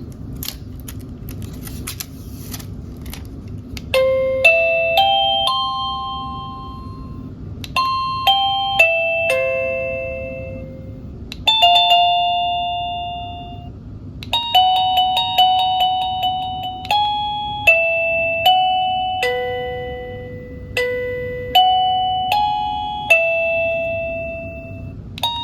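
PLACUY wireless doorbell chime receiver playing several short electronic ringtone melodies one after another, each a quick run of bright ringing notes, as it is stepped through its different chime sounds. A few clicks of handling come first, and a low steady hum lies underneath.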